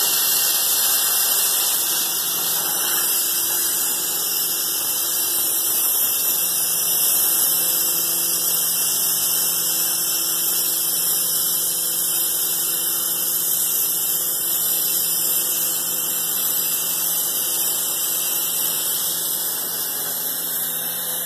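Oxy-fuel machine cutting torch hissing steadily as it burns through steel plate on a CNC cutting table, with a faint steady hum underneath.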